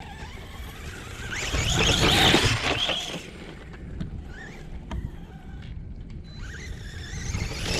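Brushless electric motor of a Redcat Volcano EPX Pro 4x4 RC monster truck whining as it drives on dirt, the pitch rising and falling with the throttle. It is loudest about two seconds in, then comes back as fainter, shorter whines.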